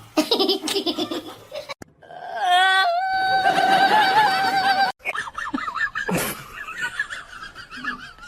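Laughter in choppy bursts, broken up by a long steady pitched call that lasts about three seconds starting about two seconds in.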